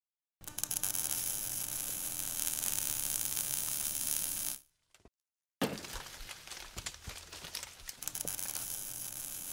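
Logo-intro sound effects: a steady crackling hiss for about four seconds, then a short silence, then a sudden hit followed by scattered crackles and clicks that slowly thin out.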